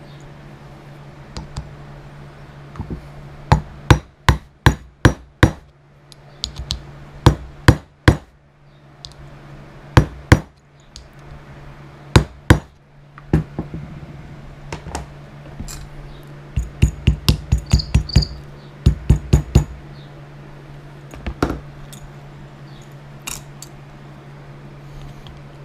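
Hammer strikes in leatherwork, sharp and ringing, coming singly and in quick runs of about four to six blows with pauses between. A steady low hum runs underneath.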